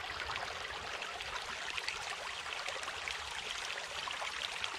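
Shallow creek flowing over rocks: a steady sound of running water.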